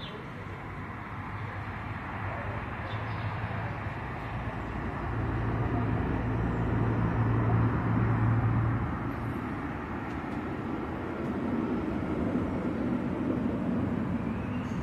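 Street traffic: a motor vehicle passes with a low engine hum, loudest about halfway through, and traffic rises again near the end.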